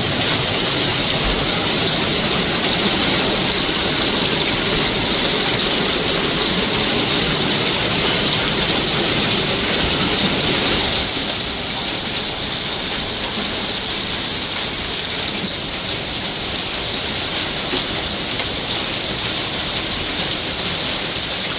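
Heavy monsoon downpour, rain falling steadily and hard, a little softer from about halfway through.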